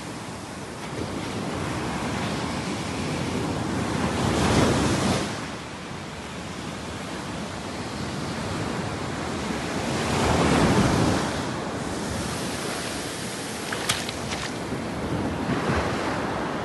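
Waves breaking and washing in, swelling twice about six seconds apart, with a brief sharp tick later on.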